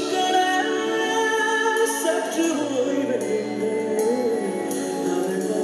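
A man singing live into a microphone with long held, wavering notes over band accompaniment.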